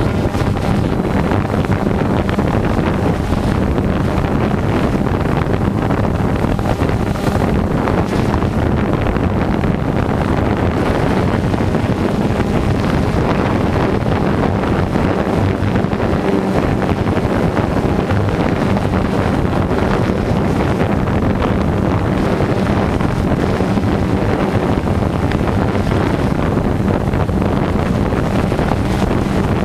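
Multirotor drone's electric motors and propellers running steadily in flight, with wind noise buffeting the onboard microphone.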